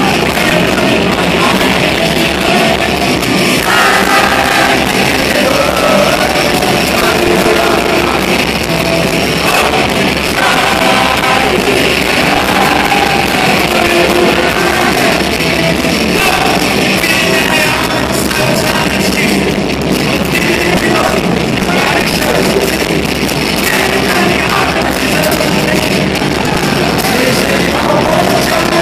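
A live rock band playing loud, with electric guitars and drums and a man singing lead.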